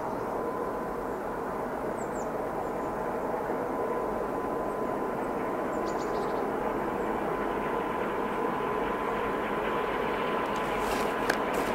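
Distant DB Class 233 'Ludmilla' diesel locomotive approaching with a freight train, a steady drone with a thin even tone over it that grows slowly louder.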